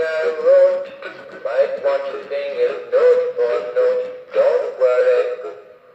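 Big Mouth Billy Bass animatronic singing fish playing its recorded song: a male voice singing over backing music, in phrases about a second long with short gaps between them.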